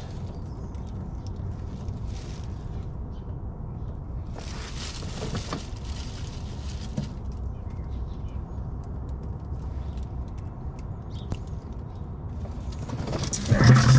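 Plastic grocery bag crinkling and rustling as a bag-covered hand handles an oily oil-filter mount, loudest for about a second some four seconds in, with a few light clicks. A steady low outdoor rumble runs underneath, and there is a louder handling noise near the end.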